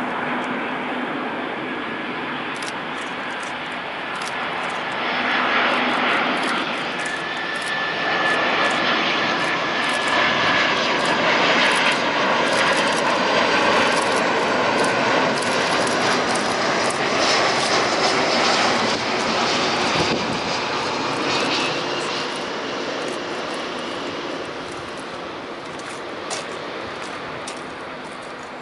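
Airbus A340-300's four CFM56-5C4 turbofan engines on final approach: a rushing jet roar with a whine that builds as the airliner passes close, stays loudest for several seconds, then slowly fades as it lands and moves away down the runway.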